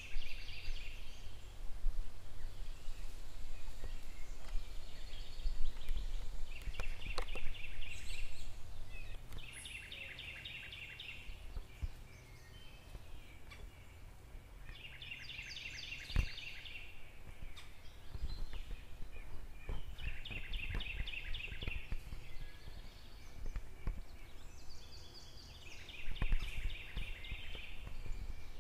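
A bird repeating a short, rapid rattling call about seven times, every few seconds, with a pause in the middle stretch. A low, steady rumble runs underneath.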